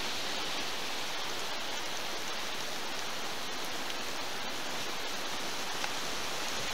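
Heavy thunderstorm rain falling steadily through the tree canopy: an even, unbroken hiss.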